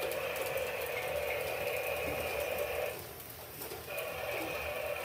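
Battery-powered toy steam locomotive running on plastic track, its small motor and wheels whirring steadily; the whir drops away for about a second around three seconds in, then returns.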